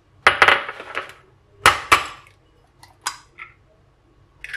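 Eggs being cracked against glass: two pairs of sharp knocks with a clink, followed by a few lighter taps and clicks of glass.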